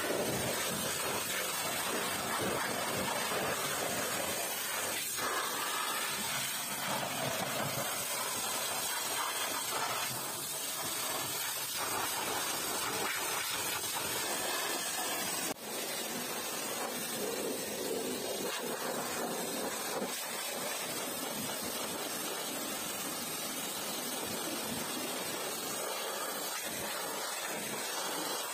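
Pressure washer lance spraying a high-pressure water jet onto a car's body, wheel and the wet ground: a steady hiss of spray, broken off for a moment about halfway through.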